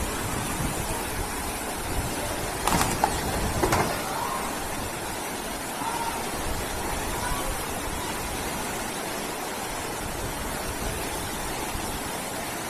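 Floodwater rushing steadily down a street, a constant roar of water. Two loud knocks come about three and four seconds in.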